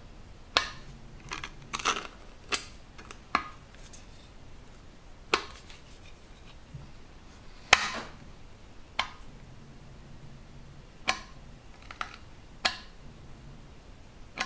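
Metal filling knife scraping and clicking against a cast iron gutter as it spreads body filler: a dozen or so short, sharp strokes at irregular intervals, the loudest about halfway through.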